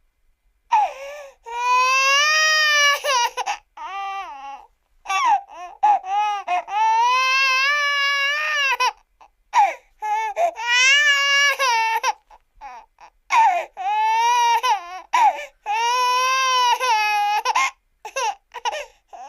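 Accordion played to imitate crying, as a cartoon sound effect: a series of long wailing notes that waver and bend in pitch, broken up by short sobbing notes and brief gaps.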